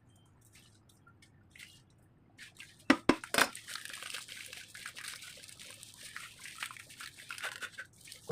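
Soft cake cream being worked: a few sharp knocks about three seconds in, then several seconds of wet, crackly squishing and dripping.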